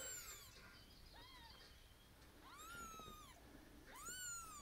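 Newborn kittens mewing: about four high-pitched cries, each rising and then falling in pitch.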